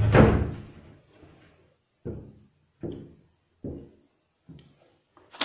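A door shuts with a loud bang that rings on for a moment, then four slow, heavy footsteps land on a hard floor, a little under a second apart.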